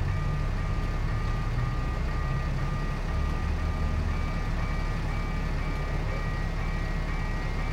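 Level-crossing warning signal beeping in even repeated pulses, about two a second, while the crossing lights flash. A low engine rumble runs underneath, strongest in the first half.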